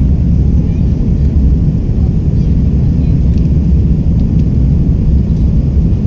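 Airbus A330-300 jet at takeoff power: a loud, steady low rumble of engine and air noise that holds even throughout.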